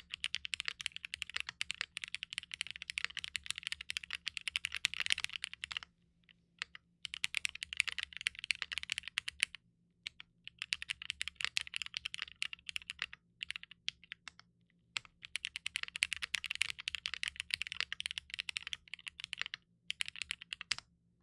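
Fast typing on a W1-AT mechanical keyboard with a 1.2 mm PCB, Cherry MX Black linear switches polished with diamond paste, and GMK Modern Dolch Light keycaps. The key clacks come in a quick, dense stream, in several runs broken by brief pauses, and stop shortly before the end.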